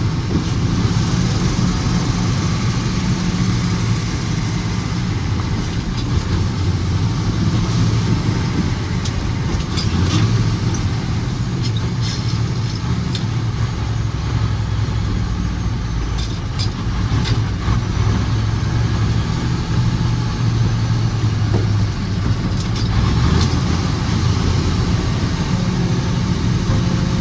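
Autocar truck's diesel engine running at road speed with road noise, a steady low drone whose pitch shifts slightly now and then.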